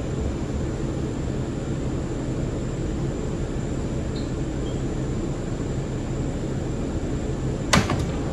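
R179 subway train running on the track: a steady rumble of wheels and motors, with one sharp clank near the end.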